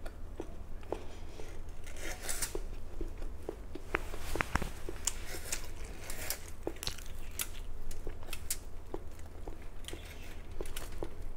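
Close-up eating of peeled Fuji apple slices: repeated crisp bites and wet crunching chews, small sharp crackles scattered throughout, over a faint steady low hum.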